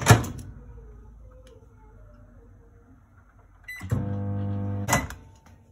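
Microwave oven: a sharp click at the start, then a beep from a button press and the oven running with a steady hum for about a second, cut off by a click and beep.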